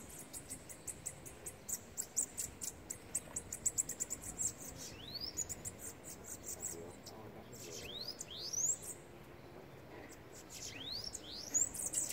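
Caged bananaquits singing against each other in a song contest: fast, very high ticking trills broken by quick rising whistles, again and again.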